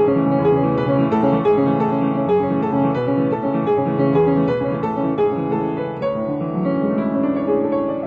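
Instrumental background music on piano, a steady stream of notes.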